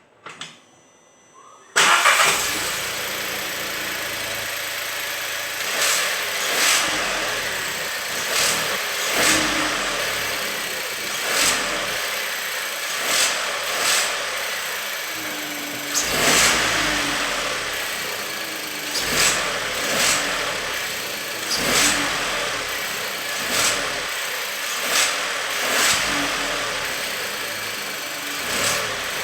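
Volkswagen up!'s three-cylinder 1.0 TSI petrol engine starts about two seconds in and then runs, with short louder sounds every second or two over the steady running: the strange noise the owner is showing.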